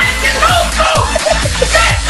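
Loud electronic dance music with a steady kick drum, a little over two beats a second, and bending melodic lines above it.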